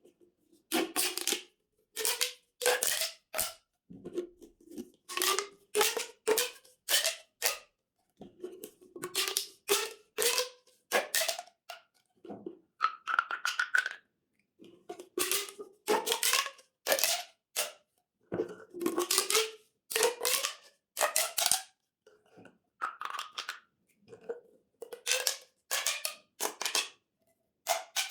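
Corrugated plastic pop tubes being stretched and squashed over and over, each pull giving a crunchy ratcheting rasp of clicking ridges that rises in pitch, in quick runs of several strokes with brief pauses between.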